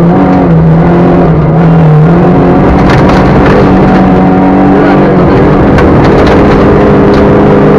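Rally car engine running hard at high revs, heard loud from inside the cockpit; its pitch drops for a second or so about half a second in, then climbs back and holds. Tyre and gravel noise from the loose road surface runs under it, with a few sharp stone hits.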